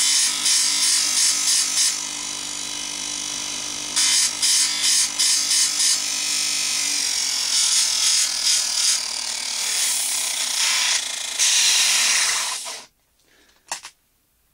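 A homemade disc sander, a washing-machine spin motor at about 2850 rpm driving a 125 mm disc of 60-grit sandpaper, runs steadily while a wooden dowel's end is pressed against the disc again and again. The dowel is being chamfered, and the grinding comes in groups of short strokes. The sound cuts off abruptly near the end, followed by a faint click.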